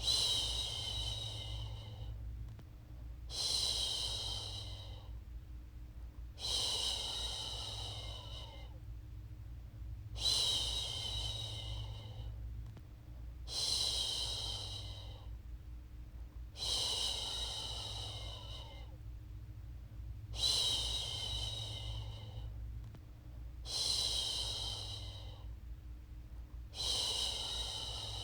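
A woman's voice shushing a baby to sleep: a long hissing "shhh" of about two seconds, repeated evenly about every three and a half seconds, nine times, over a steady low hum.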